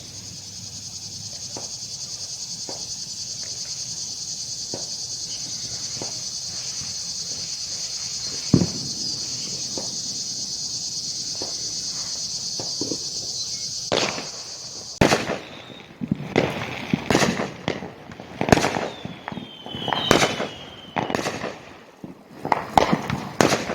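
Firework bangs from the surrounding neighbourhood. For the first fifteen seconds or so there are only scattered distant pops over a steady high chirring of insects. Then the insect sound drops out and a rapid volley of loud firework bangs and crackles follows.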